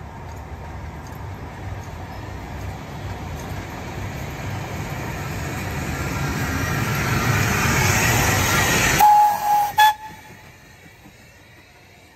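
Narrow-gauge steam locomotive JŽ 73 019 approaching and passing, its rumble and clatter growing steadily louder. About nine seconds in the sound breaks off, and a short steam whistle blast follows with a brief second toot.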